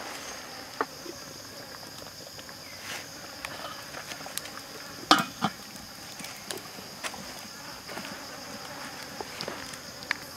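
Insects droning steadily in the background. A domed stainless steel lid is set on a wok about five seconds in, with two clanks, and the wood fire gives scattered light crackles.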